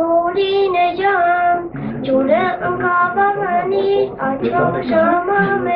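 A young girl singing, holding long notes between quicker phrases.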